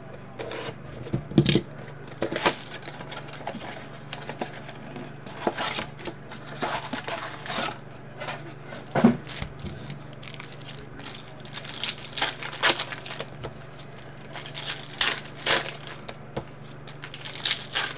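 Plastic shrink wrap and card-pack wrappers crinkling and tearing in irregular bursts, as a sealed trading-card box is unwrapped and its packs are torn open.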